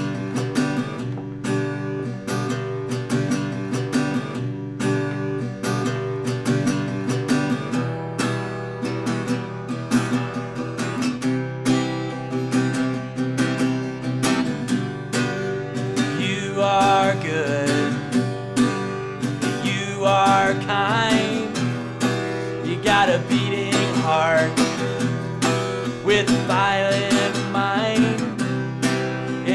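Acoustic guitar strummed in a steady rhythm, playing a song; about halfway through, a man's voice begins singing along over it in short phrases.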